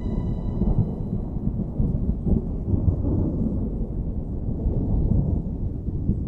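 Low, rolling thunder rumble from a storm sound effect, rising and falling without a break. The last of a held musical note fades out over the first second or so.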